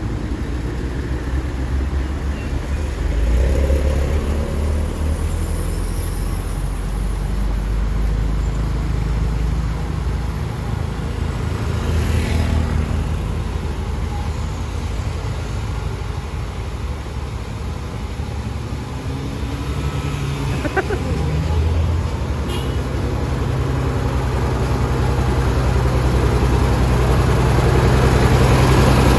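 Heavy diesel engine of a Mercedes-Benz tour bus labouring slowly up a steep grade with a steady low rumble, together with the traffic queued behind it. The engine grows louder over the last few seconds as the bus comes right alongside.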